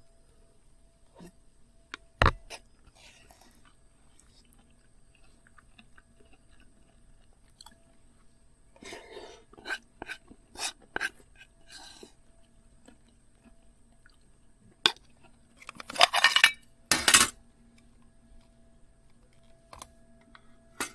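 Eating sounds: a metal spoon clinking and scraping in a camping cooker pot, with chewing. A sharp knock comes about two seconds in, and a louder run of scraping strokes near the end.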